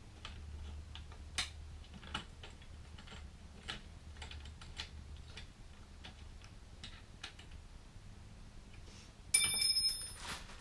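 Scattered light metallic clicks and taps of bolts, plates and tools being worked by hand on a motorcycle pannier rack mount, then a louder metallic clink that rings briefly about nine seconds in.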